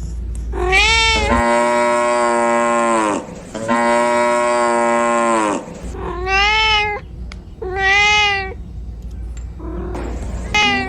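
Cat meowing loudly, about five times: two long, drawn-out meows, then two shorter ones that rise and fall, and a brief one near the end.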